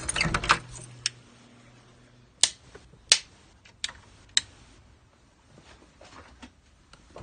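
A series of sharp clicks at irregular intervals: a quick cluster at the start over a low hum that stops after about two seconds, then single loud clicks roughly every half-second to second, growing fainter near the end.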